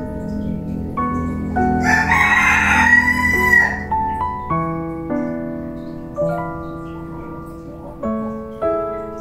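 A rooster crows once, about two seconds in, a call lasting about two seconds, over steady background piano music.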